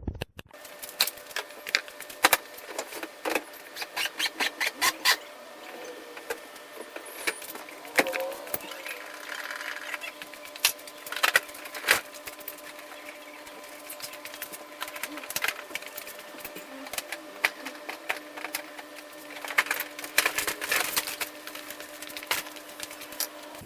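Hand tools at work on car body fasteners: a run of quick, even ratchet-like clicks in the first few seconds, then scattered clicks and knocks, with another flurry of clicks near the end.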